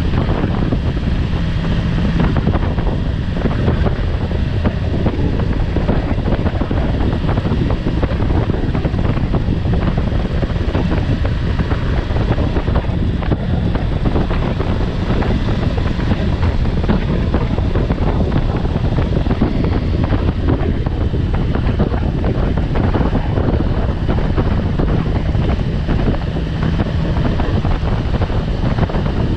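Steady wind buffeting on the microphone of a motorcycle cruising at road speed, over a low, even drone from the engine and tyres.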